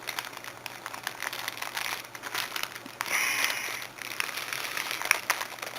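Plastic packaging crinkling as a pair of nickel handcuffs is pulled out of its box, with scattered small clicks and taps and a denser rustle about three seconds in.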